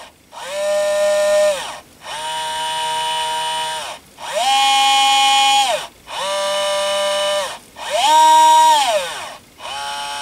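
ES121 electronic screwdriver's small brushed motor and planetary gearbox whining in about six short runs. Each run rises in pitch as the motor spins up, holds steady, then falls as it stops, and some runs are faster and higher-pitched than others.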